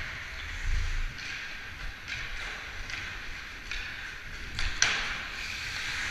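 Hockey skate blades scraping and carving on ice in repeated strides, a swell of hiss about once a second, with a low rumble underneath. A single sharp crack on the ice comes about three quarters of the way in.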